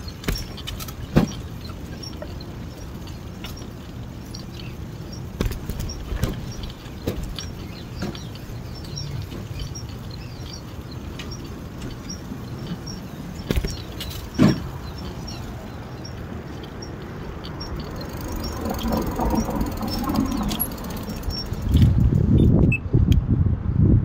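A bicycle rolling along a concrete sidewalk: a steady rumble of tyres and wind on the microphone, with a few sharp knocks as the wheels go over pavement joints and a louder patch of rumble near the end.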